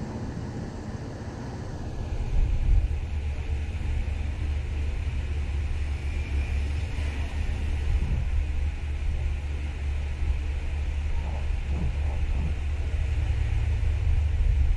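A steady low rumble, joined by a faint steady hiss about two seconds in.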